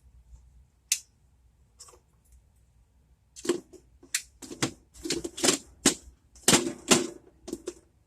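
Plastic and metal clicks and clatters from an Instant Pot lid being fitted and twisted shut and its valve set to sealing. It starts with a couple of single clicks, then a quick, irregular run of clacks from about three and a half seconds in.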